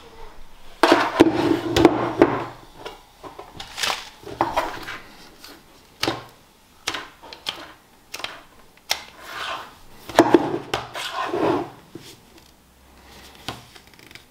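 Handling noises of a plastic steering-column switch stalk and its sheathed wiring loom being picked up and turned over on a wooden desk: irregular clicks, knocks and rustles, with two busier spells, about a second in and again near ten seconds.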